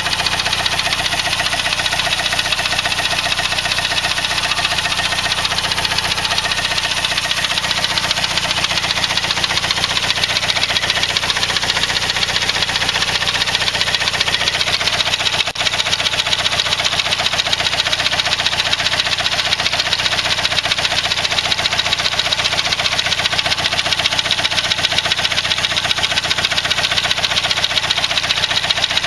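Saab 9-3's B205E 2.0-litre turbocharged four-cylinder engine idling steadily, with a fast, even ticking clatter. There is a brief dip in level about halfway.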